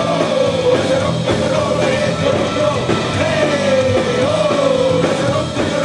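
Live rock music: a band playing loudly with a sung or shouted vocal line rising and falling over it.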